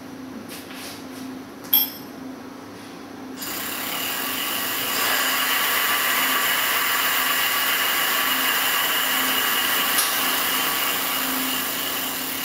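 Rear hub motor of an electric bike conversion kit spinning up under throttle after a sharp click about two seconds in. It gives a steady whine over a hiss that builds for a second or so, holds, and eases off near the end.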